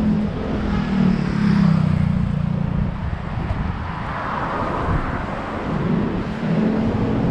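Wind rumbling on the microphone of a moving bicycle, with a motor vehicle's engine passing in the first couple of seconds, its pitch dipping slightly as it goes by. A rush of road noise swells about four seconds in, and another engine comes up near the end.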